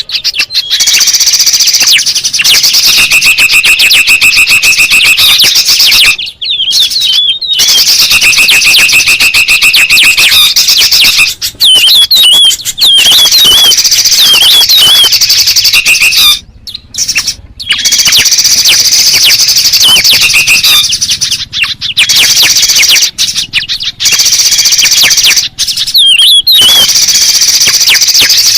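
Bird-luring recording of several songbirds, including bulbuls and spiderhunters, calling loudly all at once. Busy high chattering and quick whistled notes are joined by a buzzy trill that comes back about every five seconds, broken by a few brief gaps.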